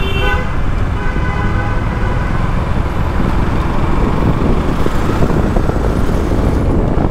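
Vehicle horns honking several times in the first couple of seconds, in busy city traffic, over the steady rumble of wind and engine from a motorcycle on the move.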